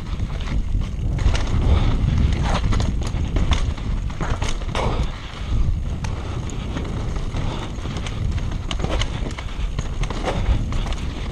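Canyon Sender downhill mountain bike ridden fast over a rough dirt and rock trail: a steady low rumble of tyres on the ground, broken by frequent irregular clattering knocks as the bike hits rocks and bumps.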